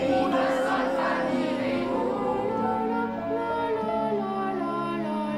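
Slow instrumental film music with long held notes and a soft airy shimmer in the first two seconds.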